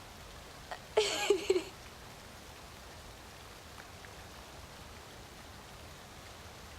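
Steady hiss of rain, broken about a second in by a brief, shaky sob from a woman.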